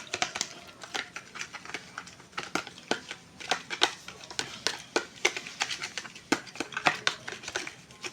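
A spoon briskly stirring lime juice and sweet soy sauce in a small container, clinking against the sides in quick, irregular clicks, a few each second.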